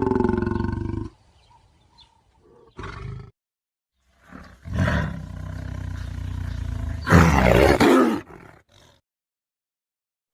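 Big cat roaring: a call that fades out about a second in, a short one near three seconds, then a long, loud roar that swells to its peak near the end before stopping.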